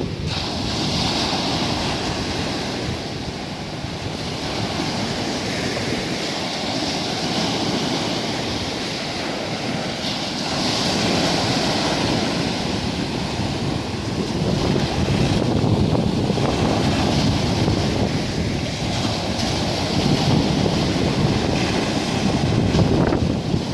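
Sea waves washing onto a beach, with wind rumbling on the microphone. The surf swells and ebbs every few seconds.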